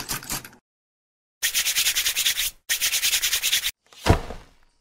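Scratchy rubbing sound effect on cardboard in rapid, even strokes, coming in three bursts. About four seconds in it gives way to one whoosh with a low thud as the cardboard box pops open.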